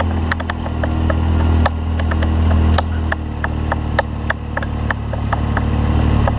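Off-road side-by-side race car's engine idling steadily, with a scatter of short, sharp clicks and taps over it.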